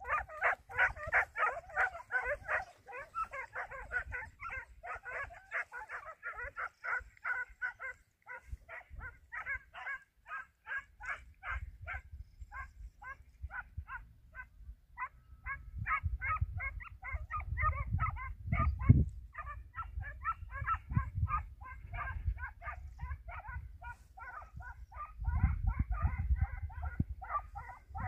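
Hunting hounds giving tongue on a hare's scent: a rapid, unbroken string of short yapping barks, about three to four a second, denser and overlapping at first as if from several dogs. Low rumbling noise comes and goes beneath the barks around the middle and near the end.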